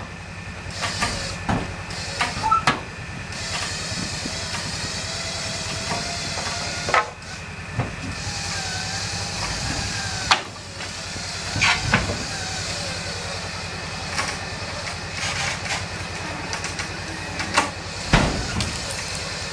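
A four-wheeler's winch pulling the box off an E350 box truck: a steady motor hum and hiss, with scattered creaks and sharp cracks from the box and its fastenings as the box tilts and shifts, and a heavier thud near the end.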